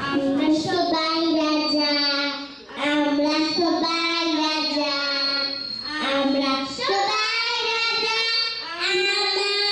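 A young girl singing into a microphone, holding long notes, with a short break about two and a half seconds in.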